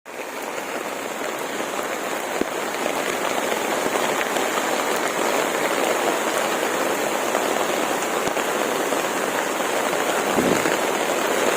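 Steady, even rush of storm water, from heavy rain and fast-flowing floodwater, with a few faint clicks.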